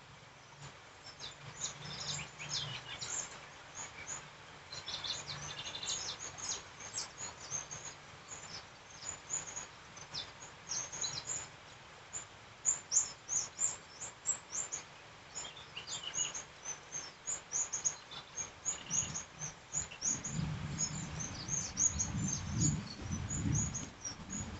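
Steady rain with many short, high chirps over it throughout. A low rumble comes in about twenty seconds in.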